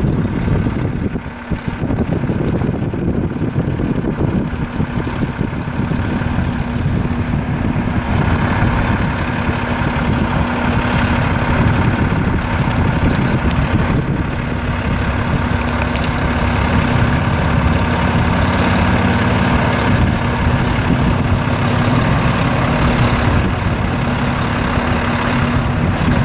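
Road traffic at a signalled intersection: cars passing and idling, with a heavy truck's engine idling steadily from about eight seconds in.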